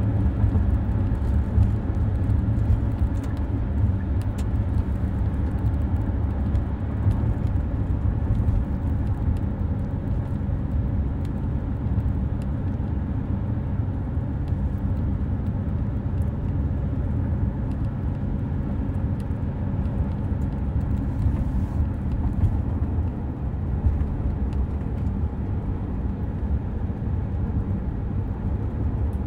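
Steady low rumble of a car in motion heard from inside the cabin: engine and road noise.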